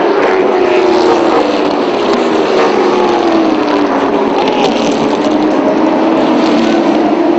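Several late model stock car V8 engines running hard around the oval at once, their overlapping pitches sliding down and back up as the cars pass.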